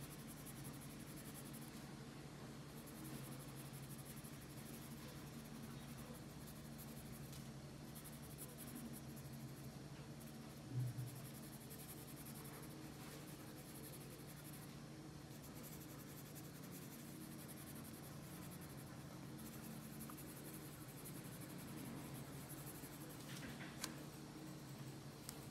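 Red coloured pencil scratching softly on paper as a drawing is coloured in, over a low steady hum. A single thump about eleven seconds in, and the paper sheet being shifted near the end.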